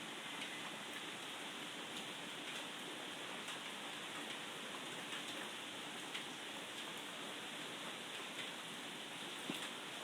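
Steady rain falling, a continuous hiss with scattered individual drops ticking sharply through it.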